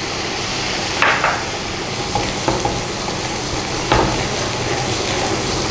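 Ghee and butter sizzling steadily in a frying pan with ginger-garlic paste and red chilli powder, stirred with a silicone spatula that scrapes the pan a few times, about a second in and again near four seconds.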